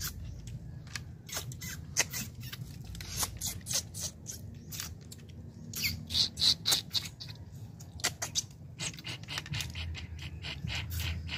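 People sucking cooked horn snails out of their shells while eating: a run of quick, irregular sharp sucks and clicks, loudest about six to seven seconds in.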